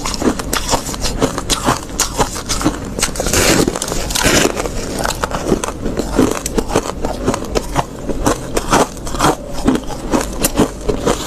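Close-up biting and chewing of soft freezer frost: a dense run of crisp crunches and crackles, with one longer, louder crunch about three to four seconds in.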